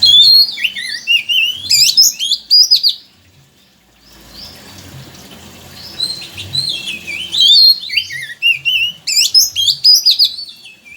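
Oriental magpie-robin (kacer) singing: rapid, varied whistled phrases with quick up-and-down glides, in two bouts with a short break about three seconds in.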